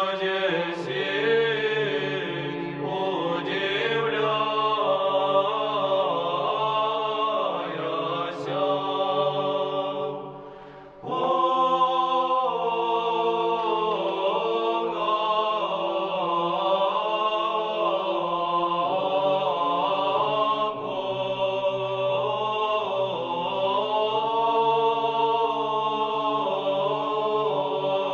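Orthodox church choral chant: a choir singing a slow melody over a steady held low drone. The singing fades out about ten seconds in and a new chant starts about a second later.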